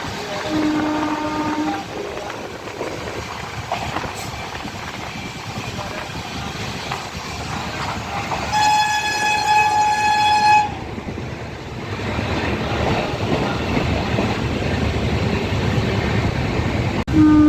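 Passenger train running on the rails, its steady rumble heard from a carriage. A short low horn note sounds about half a second in, a louder, higher horn blast lasts about two seconds around the middle, and the low horn note returns at the very end.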